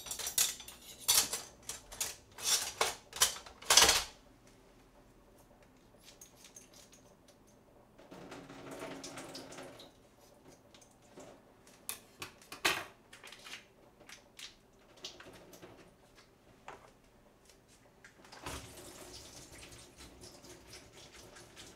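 Kitchen clatter of dishes and utensils: a quick run of sharp clinks and knocks in the first four seconds, then scattered knocks, with two stretches of a soft steady rushing noise in between.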